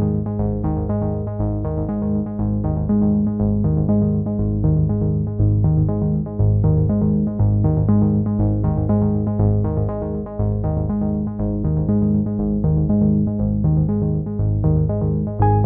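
Background music: synthesizer and keyboard music with a steady bass and a quick repeating pattern of notes.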